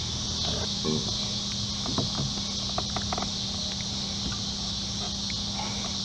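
Steady high chorus of insects buzzing, over a low steady hum. A few faint light clicks and taps are scattered through it.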